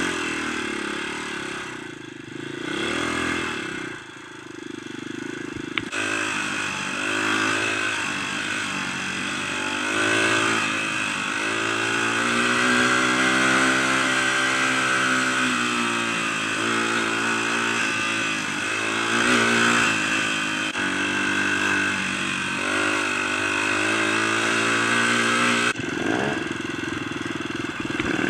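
Dirt bike engine running on a trail ride, quieter for the first few seconds, then louder, its pitch rising and falling again and again as the rider opens and closes the throttle and changes gear.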